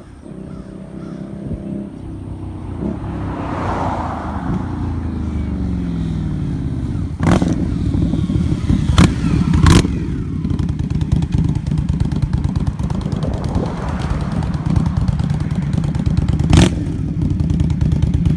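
Indian Scout's liquid-cooled V-twin running through J&P Cycles chrome slip-on mufflers, pulling away and cruising by. The engine pitch rises and falls as it goes through the revs, getting louder overall. There are a few sharp cracks, one about seven seconds in, two more around nine to ten seconds and one near the end.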